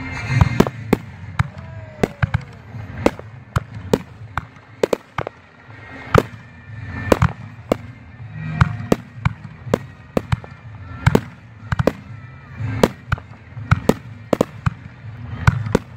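Aerial display fireworks going off in quick, irregular succession, a string of sharp bangs and pops bursting in the sky.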